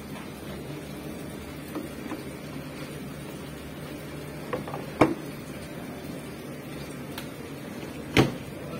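Miele tumble dryer's plastic lint filter clicking as it is fitted back into the door opening, with one sharp click about five seconds in. The dryer door is then pushed shut with a heavy thump near the end, over a steady low hum.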